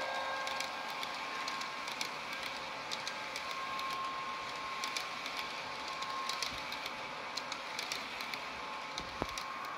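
H0-scale model passenger coaches rolling past on the track: a steady running hiss with many light, irregular clicks from the wheels on the rails, and a low bump about nine seconds in.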